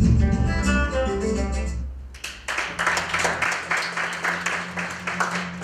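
Plucked guitar music from a film soundtrack ends about two seconds in, and an audience then applauds.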